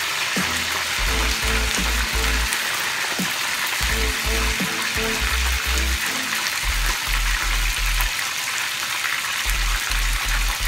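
Chicken pieces deep-frying in hot oil in a large pot: a steady bubbling sizzle. Background music with a regular bass beat plays under it.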